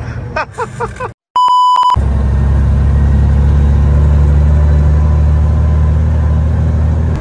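A single flat, steady beep lasting about half a second, then a loud, steady low rumble of a vehicle driving, heard from inside the cab.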